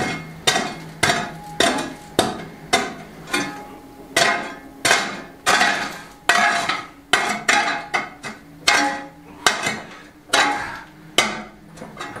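Long steel bar jabbing and scraping into loose stone rubble on a floor, a sharp clinking strike about twice a second at first, then a little slower. The rubble base is being broken up and levelled before limecrete is laid.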